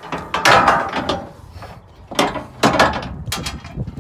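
Steel skid plate scraping and rattling against the vehicle's underside in about four rough bursts as it is pushed up over the stock skid into place.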